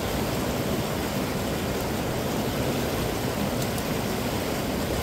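Steady rushing noise of flowing stream water.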